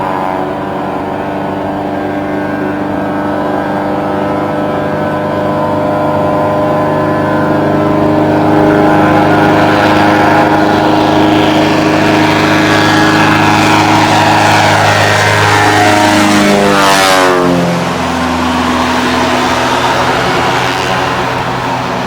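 Floatplane's piston engine and propeller running steadily and growing louder as it approaches. Its pitch drops sharply as it passes close about 17 s in, then it carries on at a lower, steady pitch.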